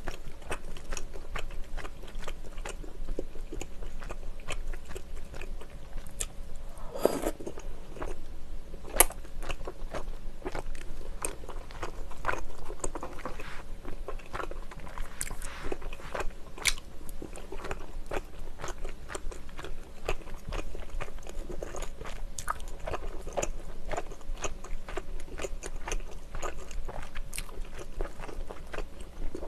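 Close-miked eating sounds: chewing chewy rice cakes in spicy tteokbokki sauce, with a steady stream of small wet mouth clicks and smacks.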